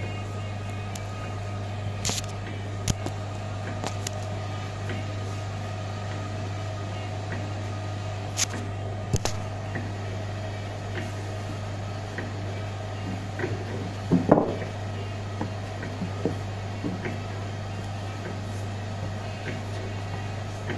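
Steady low electrical hum from bakery equipment, with scattered soft knocks and taps as hands pick up and set down pieces of dough on a floured worktop; the loudest knock comes about fourteen seconds in.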